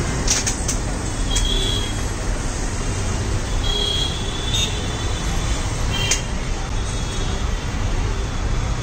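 Steady roadside traffic noise with a low rumble, broken by a few sharp clicks and brief high squeaks.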